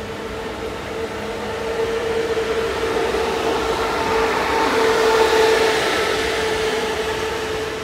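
Queensland Rail electric train running: a steady hum under a rush of noise that swells to its loudest about five seconds in, then eases off.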